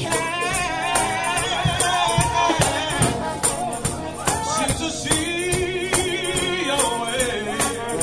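Gospel music with singing over a tambourine keeping a steady beat.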